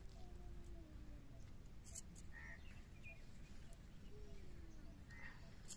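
Faint outdoor ambience: a steady low rumble with a few short, distant bird chirps, and two light taps, one about two seconds in and one near the end.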